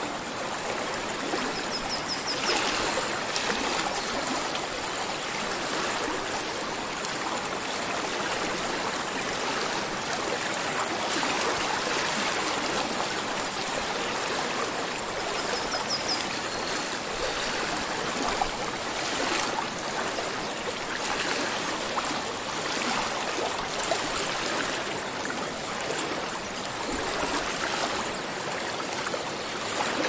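A stream flowing and babbling steadily, an even rush of water, with brief high chirps twice.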